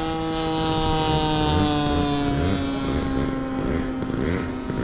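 Radio-controlled model airplane engine and propeller droning in flight, its pitch falling slowly. From about two seconds in, a second wavering engine sound runs underneath.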